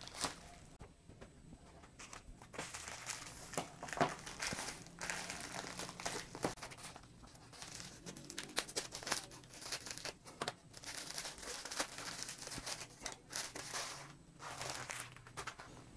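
White plastic courier mailer crinkling and rustling in irregular bursts as it is handled and unwrapped by hand, with a few sharp clicks among the rustles.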